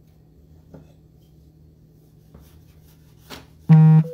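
Faint rubbing and light taps of dough being handled on a floured wooden board, then near the end a sudden loud electronic buzz, one flat buzzing tone that cuts off sharply after under half a second.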